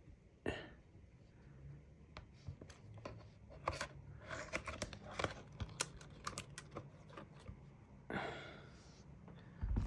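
Light clicks and taps of a laptop display assembly and its hinges being handled and fitted to the body, thickest in the middle, with a short scraping rustle a little after 8 seconds.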